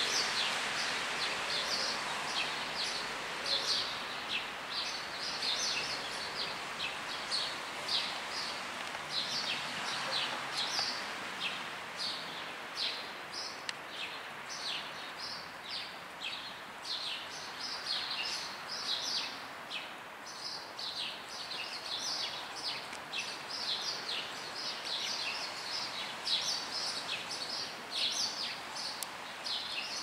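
Small songbirds chirping busily: many short, high, falling chirps, several a second, over a steady background hiss.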